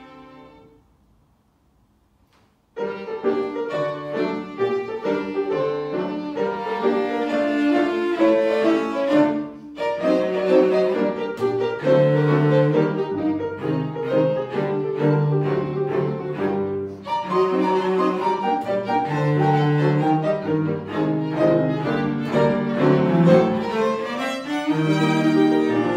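Violin, cello and piano trio: a held note fades out within the first second, a pause of about two seconds, then all three instruments come back in together and play on.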